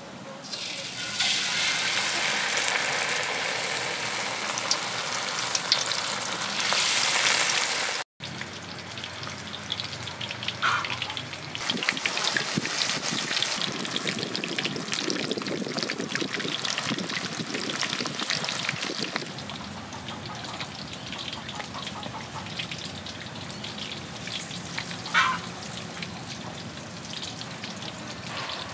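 Battered shark pieces deep-frying in hot oil in a wok. There is loud sizzling full of crackles, which jumps up about a second in as the pieces go into the oil. It breaks off for an instant, then carries on and grows softer in the second half. Two short high chirps stand out above it.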